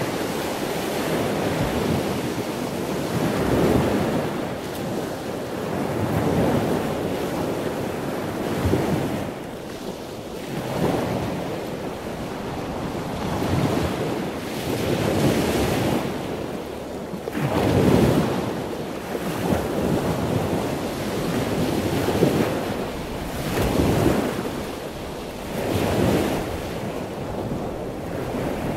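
Ocean surf: a steady rush of waves that swells and falls back every couple of seconds.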